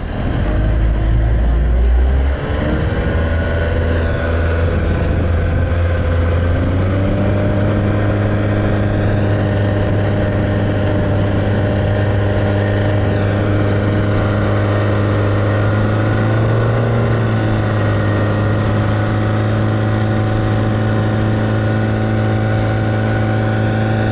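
Boat motor speeding up, its pitch rising over the first several seconds, then running steadily at speed, with a brief rise in pitch about two-thirds of the way through.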